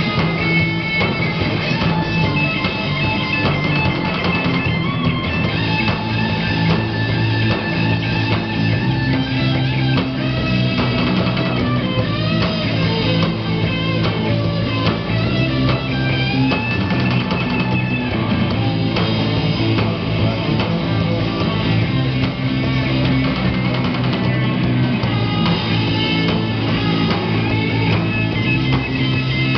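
Live rock band playing: electric guitar, bass guitar and drum kit, steady and loud.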